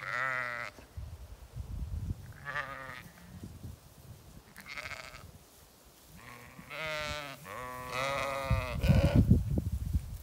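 Zwartbles sheep bleating, about six separate wavering calls from several animals. Bursts of low rumbling noise come in between, the loudest a little before the end.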